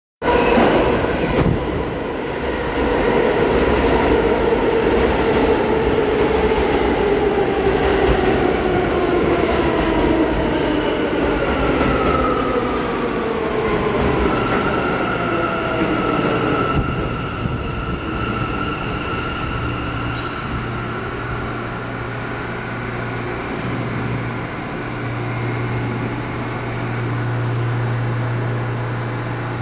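R179 subway train running through the station. Its motor whine falls steadily in pitch as the train slows over the first half, with wheels clicking over rail joints and squealing. After that a steady high tone sounds for several seconds, then a steady low hum.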